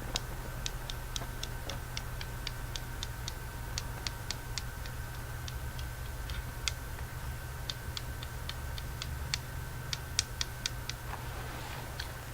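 Irregular sharp, crisp clicks close to the microphone, in quick clusters with short gaps, as lemon eggs are crunched and eaten. A steady low hum and a faint steady tone run underneath.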